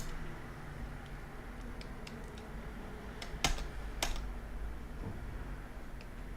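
A few isolated clicks of a computer keyboard and mouse, the two sharpest about halfway through, over a low steady hum.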